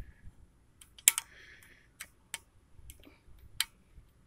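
Light metallic clicks and ticks, a string of separate sharp ones with the loudest about a second in, as a slotted lock cap is worked by hand onto a car's axle nut at the wheel hub.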